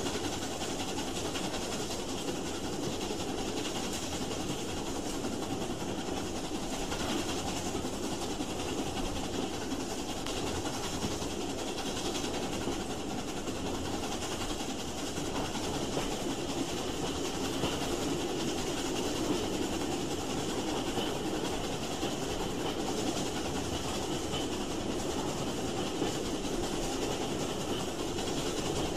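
Railway train running along the track with a steady, even rolling noise.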